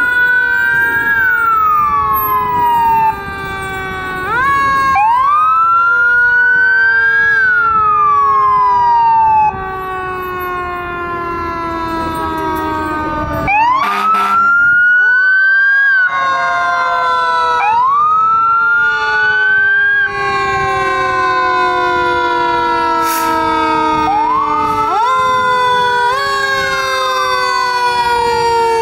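Fire truck sirens sounding together as the apparatus passes: one winds up quickly and falls away again about every four to five seconds, over another siren's long, slowly falling tone.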